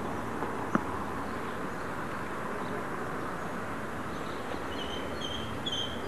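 Steady outdoor background noise with a single sharp click about a second in. Near the end a bird chirps in short, repeated high notes.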